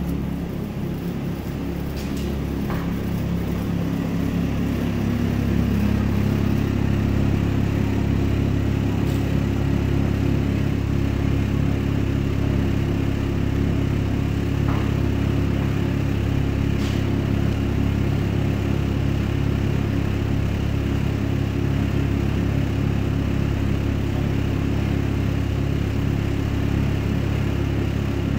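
Steady low hum of supermarket refrigeration and ventilation machinery, with the open refrigerated display cases close by. It swells a little over the first few seconds and then holds level, with a few faint clicks.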